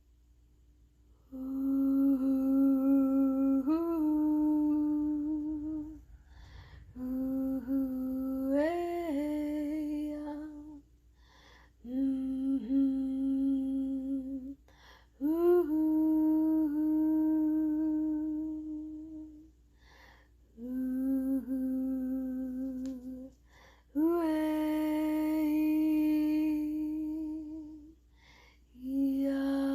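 A woman humming a slow, wordless chant: a series of long held notes, some stepping up in pitch partway through, broken by short pauses for breath.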